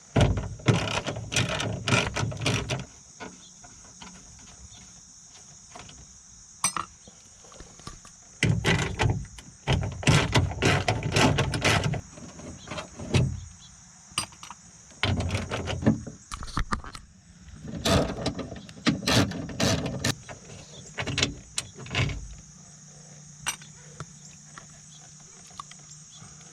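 Ratchet with a 10 mm socket clicking in several short bursts with pauses between them, loosening the window regulator bracket bolts.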